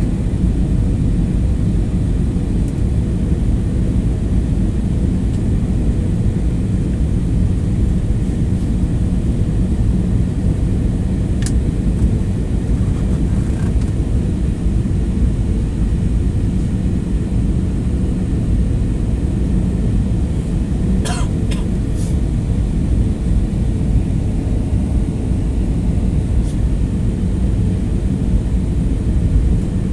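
Steady low rumble of an airliner cabin in flight, from engine and airflow noise. A few short, faint sounds stand out from it near the middle and about two-thirds of the way in.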